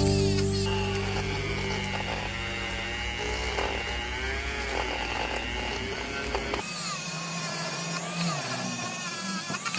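Electric power tool motor running with a steady hum and a high whine; the low hum drops away about two-thirds of the way in while the higher sound carries on.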